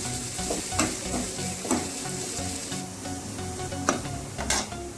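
Chopped onions sizzling in hot oil in a kadai while being stirred, with a few short scrapes of the spatula against the pan.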